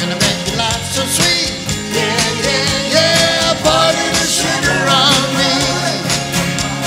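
Strummed acoustic guitar with a man's voice singing over it.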